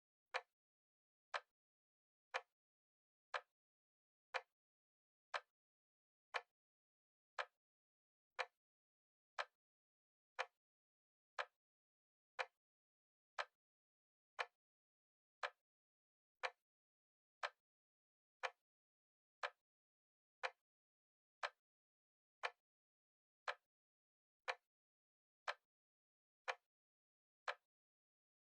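Timer ticking steadily, one short sharp tick every second, counting off the seconds.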